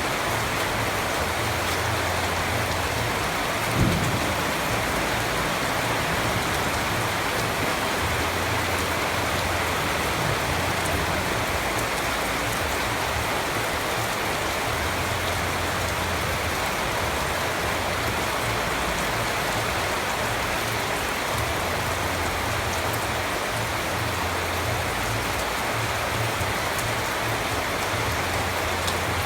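Steady rain falling on a surface, an even hiss of many drops, with a single short low thump about four seconds in.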